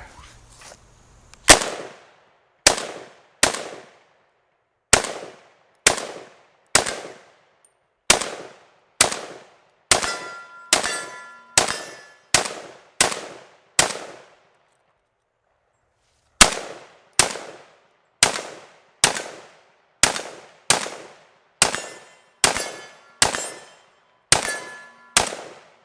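PSAK-47 GF4 AK-pattern rifle in 7.62×39 fired in slow semi-automatic, about two dozen single shots roughly a second apart, with a pause of about two seconds midway. Each shot is a sharp crack with a short echo.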